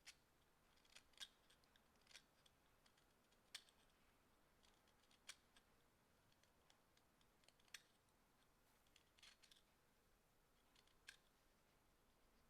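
Faint, crisp snicks of a carving knife cutting into ginkgo wood while whittling: about ten short, irregularly spaced cuts.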